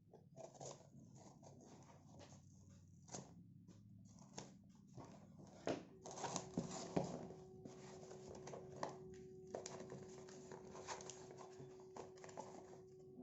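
Faint handling noises of a phone box and its packaging being opened: scattered clicks, taps and rustles, busier from about six seconds in, with a steady faint hum underneath from then on.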